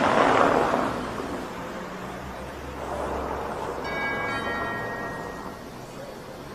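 A loud rushing swell of noise at the start, then a single bell strike about four seconds in that rings with several high tones for about a second and a half before dying away.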